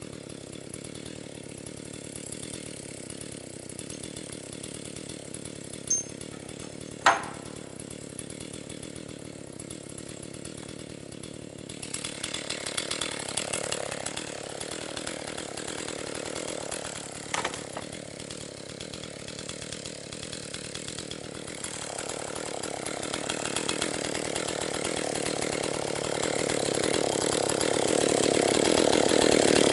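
Freshly rebuilt Husqvarna 262XP two-stroke chainsaw, being broken in on firewood. It runs at a lower, steady level for about twelve seconds, with a sharp knock about seven seconds in. Then it picks up and cuts wood, growing louder toward the end.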